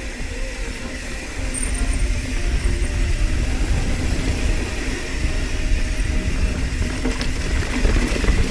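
Mountain bike rolling fast along a dirt trail: steady rush of wind buffeting the handlebar camera's microphone, mixed with tyre noise and rattle from the bike, with a few sharp ticks near the end.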